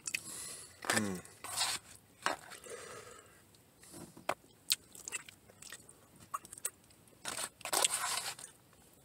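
A person eating close to the microphone: chewing and mouth noises, with scattered sharp clicks and scrapes of a fork against the food and container. There is a short falling hum of the voice about a second in.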